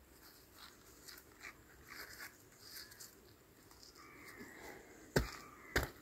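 Stones shifting and scraping quietly as they are handled among loose rubble, then two sharp stone knocks close together near the end as a flagstone is set and stood on.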